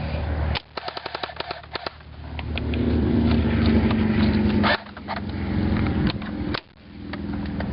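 Airsoft rifles firing rapid full-auto bursts: a quick string of sharp cracks, about ten a second, starting about half a second in, then a longer, steadier burst, and a few scattered shots near the end.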